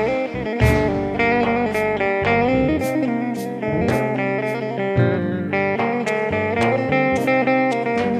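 Instrumental music break with no singing: a plucked-string melody over a steady percussion beat.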